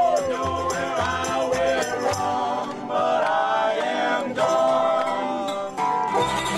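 Acoustic band playing live: several voices singing together over strummed acoustic guitars and a low bass line.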